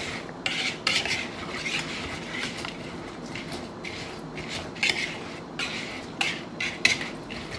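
A utensil stirring a thick casserole sauce with crispy fried onions in a mixing bowl, scraping and clinking against the bowl in an uneven run of short strokes, a few louder knocks in the second half.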